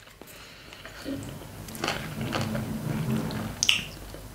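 Soft clicks and handling noise of wooden chopsticks against a plastic sushi tray as a slice of pickled ginger is picked up. A faint low murmur runs through the middle, and the sharpest click comes near the end.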